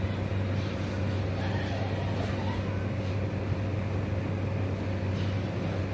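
A steady low hum with a faint constant tone above it, unchanging throughout.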